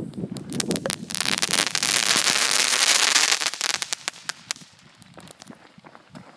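Crackling spinners of a two-inch daytime parachute firework shell popping in the sky: a dense crackle that builds within the first second, holds for about three seconds, then thins to scattered pops and dies away about five seconds in.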